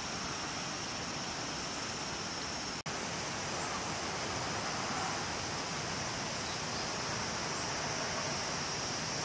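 Steady outdoor ambience: a continuous hiss of running river water with a steady high-pitched insect drone over it, cut by a split-second gap about three seconds in.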